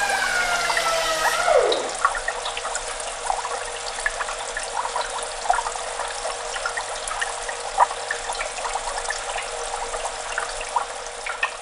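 Aquarium water trickling and bubbling, a steady hiss dotted with many small pops. In the first two seconds a pitched sound slides downward and cuts off.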